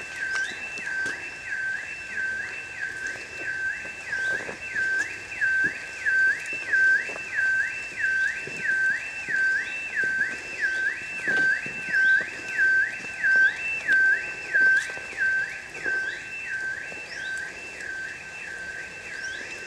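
An electronic alarm sounding continuously, its tone sweeping rapidly up and down between a lower and a higher pitch about twice a second.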